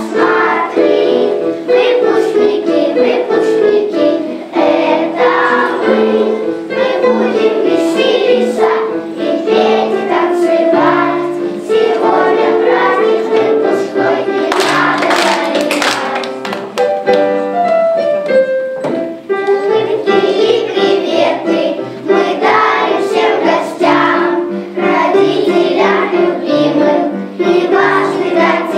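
Music for a children's song, with held melody notes and a chorus of children singing.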